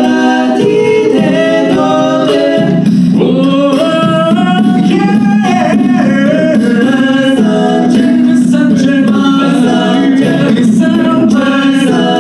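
An a cappella vocal group singing a song in several harmonised parts, with a held low bass voice underneath and the upper voices moving between chords.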